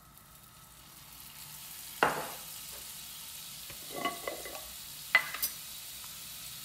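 A pat of butter melting and sizzling in a hot nonstick frying pan. The sizzle builds over the first second into a steady hiss, with a few sharp pops about two, four and five seconds in.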